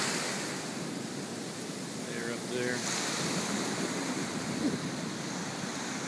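Ocean surf breaking and washing up over a sandy beach: a steady rush of water.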